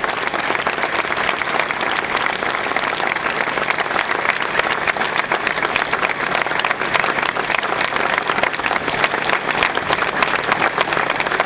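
A crowd applauding steadily, with hands clapping close by.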